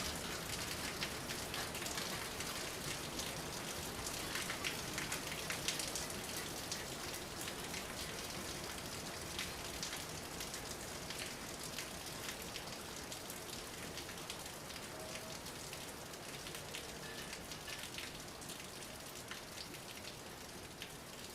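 Steady rain with many individual drops striking close by, gradually growing quieter toward the end.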